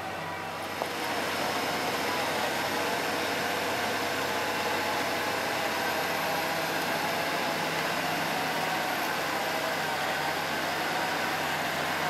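Fiat-Hitachi D180 crawler bulldozer's diesel engine running steadily as it works through mud; it gets louder about a second in.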